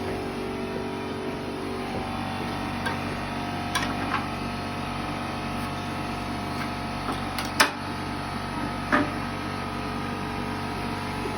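A machine running steadily with a constant hum, broken by a few sharp knocks, the loudest about two-thirds of the way in.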